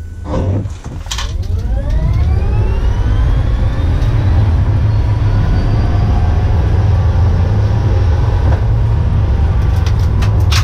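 Tesla Model S P100D's dual electric drive motors whining under full launch-control acceleration: the whine rises steeply in pitch over the first few seconds, then climbs more slowly as speed builds past 100 mph. Underneath is loud road and tyre rumble, heard inside the gutted, bare-shell cabin.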